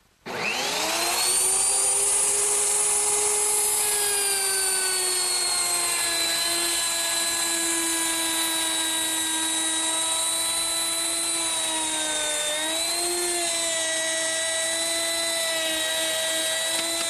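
Electric router with a 3/8-inch rabbeting bit cutting a rabbet in the edge of an oak case: the motor spins up with a rising whine, then runs at a steady high pitch, dipping briefly about twelve seconds in.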